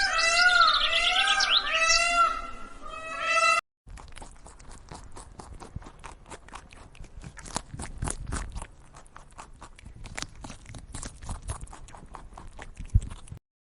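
Many high, arching animal cries overlapping one another, cut off after almost four seconds, then a long run of irregular crunching clicks, like an animal chewing.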